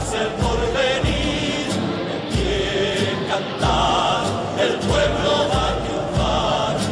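Music: a choir singing over a steady beat.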